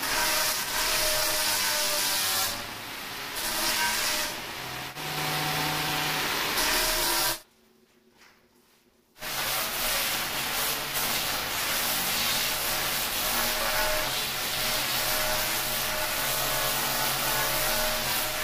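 Electric angle grinder with a pink sanding pad running against the edge of a granite countertop: a steady motor whine over a loud hissing grind. It cuts out for nearly two seconds near the middle, then runs on again.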